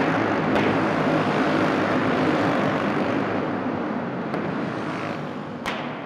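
Racing kart engines running at speed, fading away over the last few seconds as the karts take the checkered flag and slow down. A few sharp clicks are heard, one near the end.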